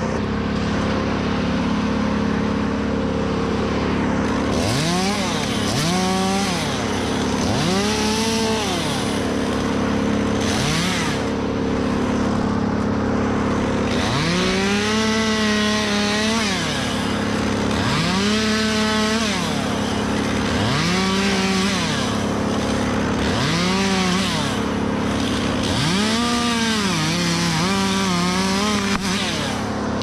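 Chainsaw revving up to full speed and dropping back again and again, about ten throttle bursts starting some five seconds in, as it cuts into dead oak. A steady engine drone runs underneath.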